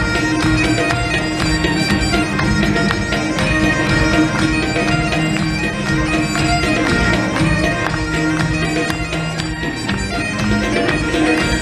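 Celtic band playing live: bagpipes over a steady drone, with fiddle and drums.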